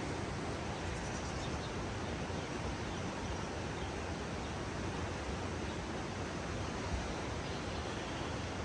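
Steady rushing of flowing water, an even unbroken noise with no distinct events.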